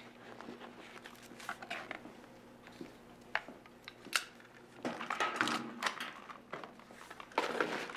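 A revolver and a leather holster being handled: scattered clicks and knocks, two sharper ones about three and a half and four seconds in, with rustling handling noise later, over a faint steady hum.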